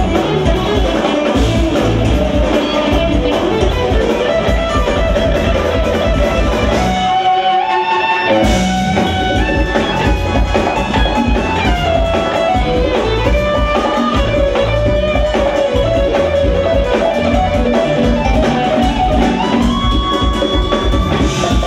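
Live instrumental jazz-funk band playing: electric guitar, electric bass, Roland and Korg Triton keyboards and drum kit. About seven seconds in, the bass and drums drop out for about a second and a half, leaving a stepping melody line, before the full band comes back in.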